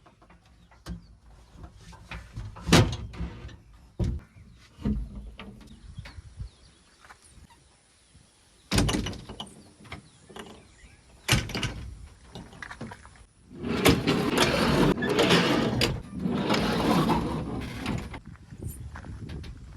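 JCB 3DX backhoe loader working: scattered clunks and knocks, then two longer rushes of noise near the end.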